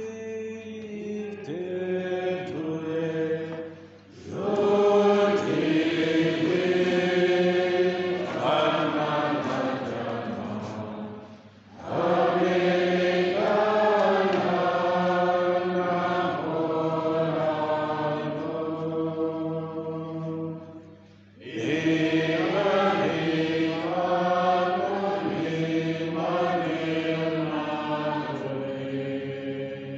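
A slow religious chant sung by voices, in long held phrases that break off briefly about four, twelve and twenty-one seconds in, over a steady low hum.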